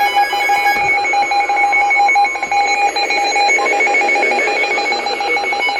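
Emergency Alert System alert tones: a loud electronic alarm sounding as steady, rapidly pulsing beeps on a couple of fixed pitches.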